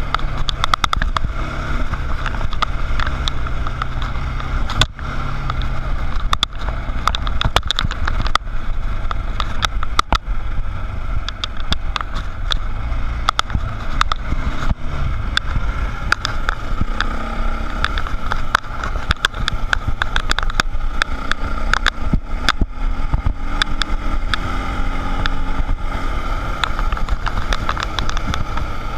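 Dirt bike engine running under way on a gravel road, its pitch rising and falling with the throttle, under a heavy low rumble and frequent sharp clicks and knocks from riding over the rough surface.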